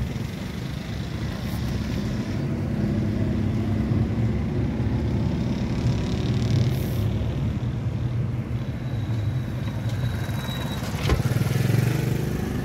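Car being driven, heard from inside the cabin: a steady low engine and road rumble, with a short click about eleven seconds in.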